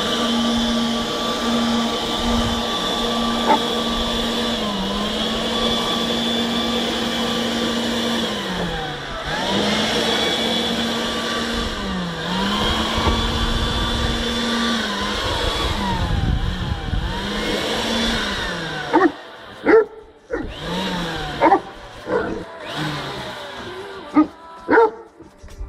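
Handheld leaf blower running at high speed, its pitch dipping and recovering several times. In the last several seconds it runs slower while a Great Dane barks loudly about five times.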